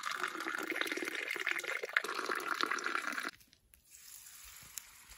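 A drink poured in a thin stream into a small glass tumbler, splashing and filling for about three seconds, then cut off abruptly; a faint steady hiss follows.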